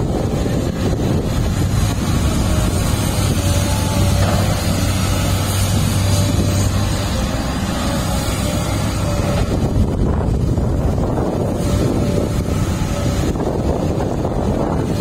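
Engine of heavy earthmoving machinery running steadily, with wind buffeting the microphone; the low engine hum weakens about halfway through.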